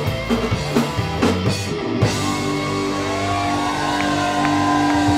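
Live rock trio of electric guitar, bass and drums playing. The drums and cymbals stop about two seconds in, leaving held electric guitar notes that bend in pitch over the bass.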